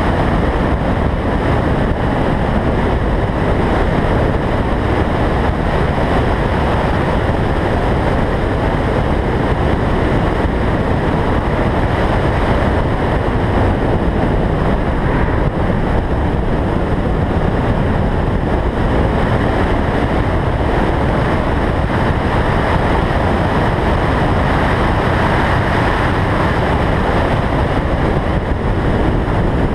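Car driving at track speed, heard through a roof-mounted microphone: a loud, steady rushing roar of wind over the microphone, with the car's running noise mixed beneath.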